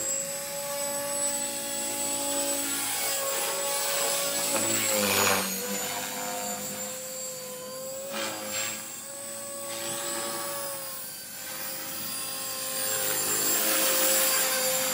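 Electric RC helicopter (Blade 450 with an E-flite 3600kv brushless motor) in flight: a steady high motor and gear whine with rotor blade whoosh, its head speed held nearly constant by the ESC governor. The whine dips slightly a few times, with two louder whooshes about five and eight seconds in.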